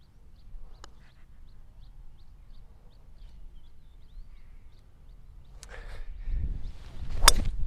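A golf driver striking a ball off the tee near the end: a single sharp, loud crack. Before it, a faint tap of a putter on the ball about a second in, over a bird's short high chirps repeating about twice a second.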